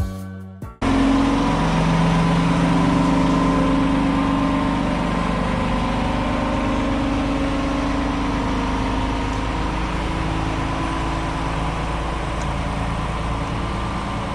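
Music ends abruptly in the first second, then a heavy engine runs steadily at a constant speed.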